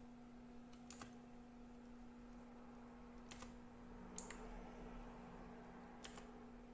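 About four sharp single clicks, a second or two apart, over a faint steady hum: buttons or keys pressed one at a time to step through the Flipper Zero clone's menus.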